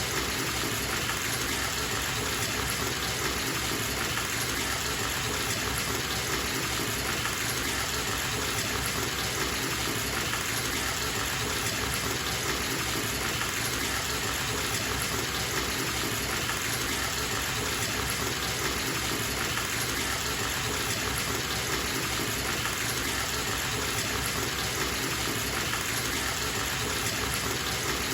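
Bathtub tap running, water gushing steadily into the tub as it fills.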